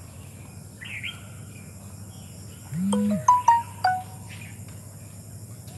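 Short electronic alert: a half-second low buzz, then a quick run of four or five short beeping tones, in the manner of a phone ringtone or notification.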